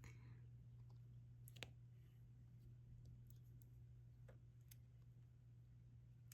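Near silence with a few faint, scattered clicks of a diamond-painting stylus picking up resin drills and pressing them onto the canvas, the sharpest about one and a half seconds in, over a steady low hum.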